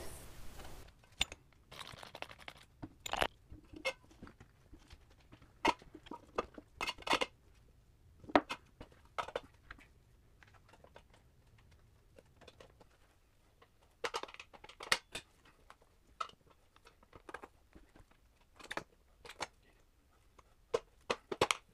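A new motorcycle tire being handled and worked onto its wheel rim by hand: irregular clicks, knocks and scrapes of rubber against the metal rim, with a few longer rubbing swishes.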